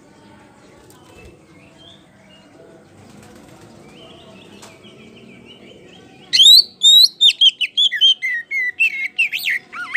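Oriental magpie-robin (kacer poci) singing. About six seconds in, after a faint background, it breaks into a loud, rapid run of whistles, sweeping slurred notes and chattering trills that lasts about four seconds.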